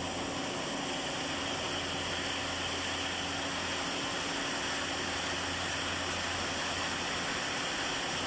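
Steady, even hiss with a faint low hum, unchanging throughout.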